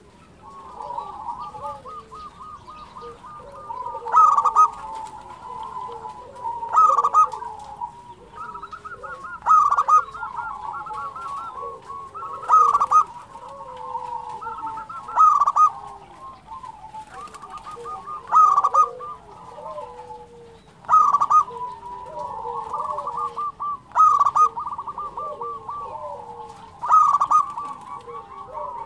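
Zebra dove (perkutut) cooing its rapid staccato trilled song. A loud phrase comes about every three seconds, nine times, with softer rolling coos between them.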